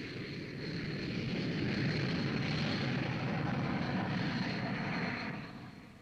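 Jet engines of an Airbus A300 airliner climbing out after take-off: a steady rushing noise with a thin high whine, swelling over the first second or two and fading away near the end.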